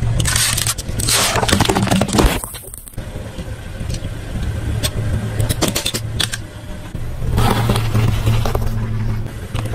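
A car engine running at idle as its tyre rolls over and crushes drink cans and a plastic toy, with many sharp crackles and crunches over a steady low hum.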